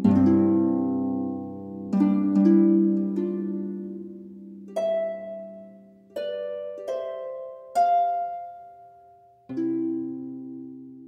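Slow, calm instrumental background music: struck or plucked chords that ring out and fade, a new chord every one to three seconds.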